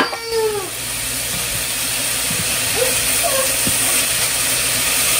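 Sliced beef, onion and carrot sizzling steadily in a frying pan, with a few light clicks as tongs stir it. A toddler's drawn-out whining cry trails off in the first half-second.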